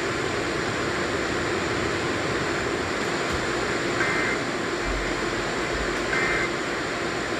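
Steady radio static hiss, with two short warbling data bursts about four and six seconds in: the Emergency Alert System end-of-message tones that close the broadcast test.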